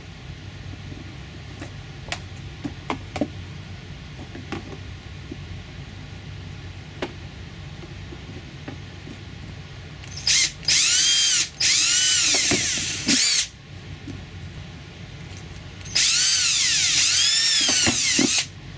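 Power drill boring through the plastic wall of a storage box into a 3D-printed spacer to take a fastener. It runs in a few short bursts a little past halfway, then in one longer burst near the end, its whine dipping and rising in pitch as the trigger is eased and squeezed. A few small handling clicks come before it.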